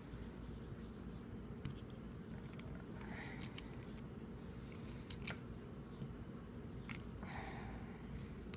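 Faint scratchy rubbing of a cotton swab scrubbing around inside the oil-soaked chambers of an eight-shot .22 Arminius revolver's cylinder. A few small clicks sound as it knocks against the metal.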